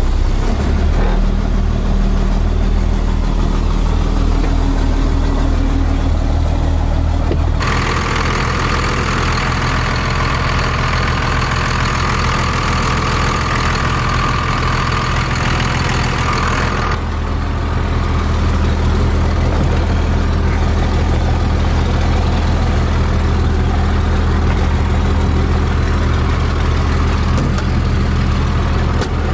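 School bus's straight-piped International DT466 inline-six diesel idling steadily just after a cold start on a freshly charged battery. From about eight to seventeen seconds in, a steady hiss with a whine in it joins the idle, then stops abruptly.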